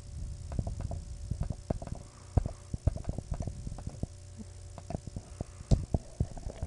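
Irregular clicks and taps from working a computer mouse and keyboard, several a second, with a few sharper ones near the end, over a low steady hum.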